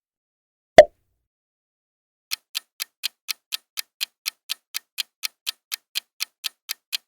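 A single short sound-effect hit about a second in, then a countdown timer's clock ticking steadily, about four ticks a second, starting a little after two seconds in.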